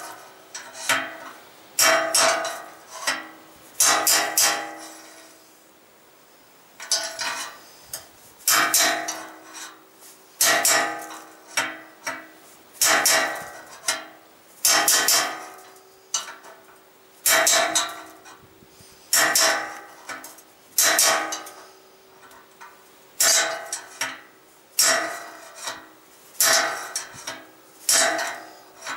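Hammer blows on a steel drill rod driving the old bearing race out of a motorcycle frame's steering head, about one every second or two and often in pairs, each ringing briefly. The rod is moved around the race between blows to knock it out evenly, quarter by quarter.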